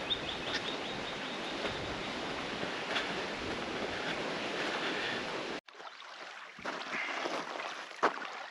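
Steady rushing wind noise outdoors, with a few faint bird chirps near the start. It cuts off abruptly about five and a half seconds in, leaving much quieter outdoor background with a couple of light ticks.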